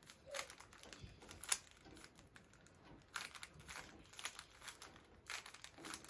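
Plastic 3x3 Rubik's cube being twisted by hand: faint, irregular quick clicks and scrapes as its layers turn, with a sharper click about a second and a half in.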